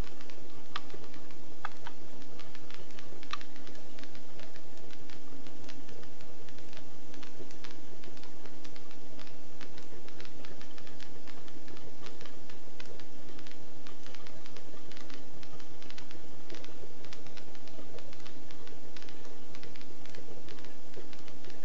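Helicopter in cruise flight heard from inside the cockpit, likely through the headset intercom: a steady hum made of several constant tones, with irregular light ticks scattered throughout.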